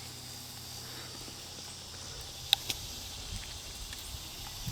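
Quiet outdoor ambience with a faint, steady, high insect hum, broken by one sharp click about halfway through.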